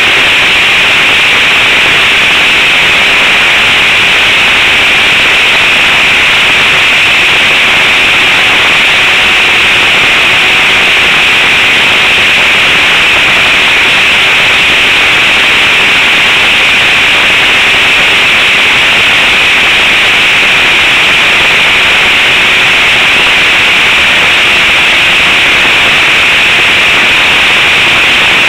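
Radio-controlled trainer model airplane in flight, its motor and propeller heard from a camera on board: a loud, steady hissing rush with a faint steady hum beneath it, mixed with wind on the microphone.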